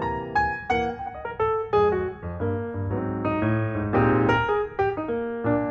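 Background music led by piano, quick melodic notes over a steady bass line.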